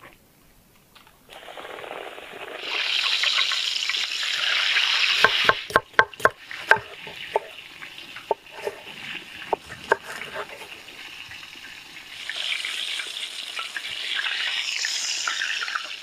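Food sizzling in hot oil in a frying pan, then a cleaver chopping cucumber on a wooden board in a quick run of sharp strikes followed by scattered single cuts. The sizzling comes back near the end.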